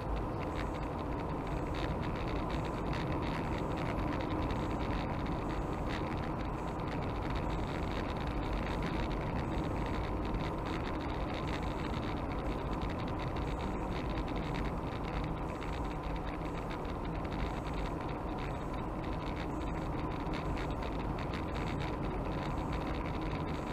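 Car driving steadily at road speed, heard from inside the cabin: an even mix of tyre and road noise with engine hum.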